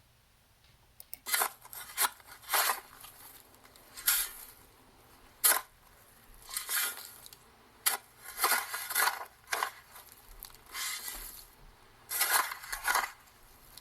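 A shovel digging in dirt: a run of short, jerky scrapes and hits as the blade cuts into the soil, with a longer sound now and then as a load of dirt is thrown.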